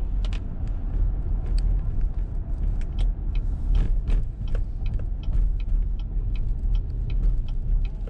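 Car driving on a wet road, heard from inside the cabin: a steady low rumble from engine and tyres, with irregular light ticks and taps throughout.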